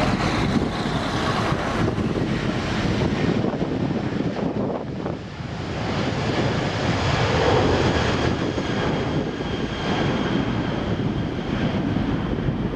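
Jet aircraft engines running with a steady, loud noise and a faint high whine above it, swelling slightly about two-thirds of the way through.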